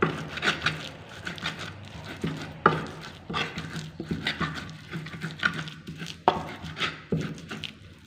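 Irregular knocks and clatter of kitchen utensils, a few of them sharp and loud, over a low steady hum.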